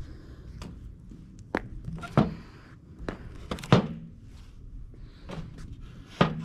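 Frozen raw chicken drumsticks tossed out by hand and landing on a concrete patio and lawn: several sharp thunks spread a second or so apart, the hardest three near the middle and near the end.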